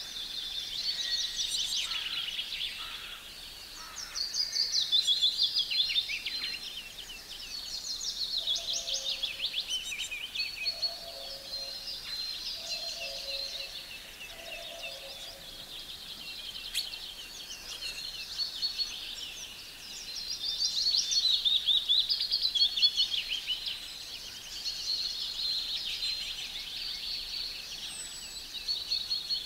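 Several songbirds singing at once, fast high-pitched phrases overlapping and swelling and fading every few seconds. A lower two-note call is repeated four times about a third of the way in.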